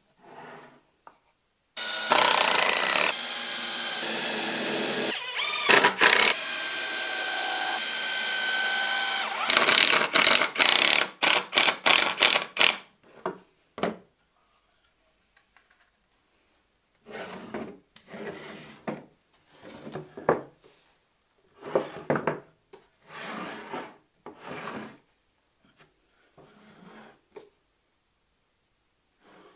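Cordless drill-driver running for several seconds, then pulsed on and off in short blips, driving screws into the plywood fence. After a pause come a dozen or so short scraping strokes on wood.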